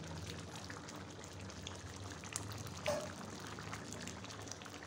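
Potato and soya chunk curry bubbling at a boil in an open pan, many small pops over a low steady hum. A short knock with a brief ring about three seconds in.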